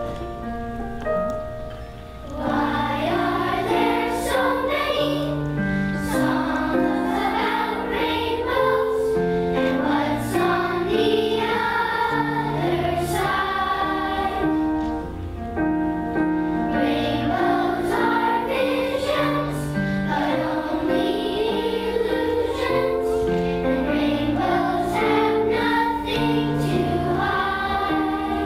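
A children's choir singing a song with instrumental accompaniment. A short instrumental lead-in comes first, and the voices come in about two seconds in.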